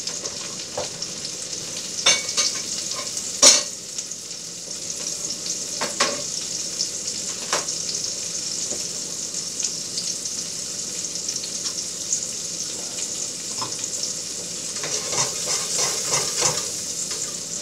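Rockfish fillet sizzling in butter in a stainless steel skillet on high heat: a steady hiss with sharp pops of spattering butter, the loudest about three and a half seconds in, and a run of quicker crackles near the end.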